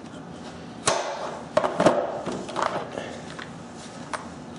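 Small hinged instrument cases being handled in a steel toolbox drawer: a sharp click about a second in as a case snaps shut, then a few knocks and clatters as it is set down and another case is picked up, and one more small click near the end.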